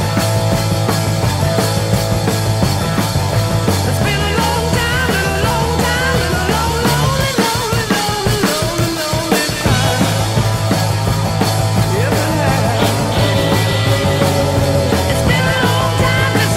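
Rock music soundtrack with drums playing a steady beat; the bass drops out briefly about halfway through and then comes back in.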